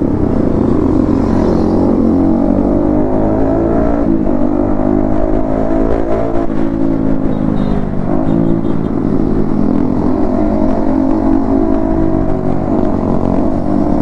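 Yamaha MT-15's single-cylinder engine through an Akrapovic exhaust while riding. Its pitch climbs and falls back several times with throttle and gear changes.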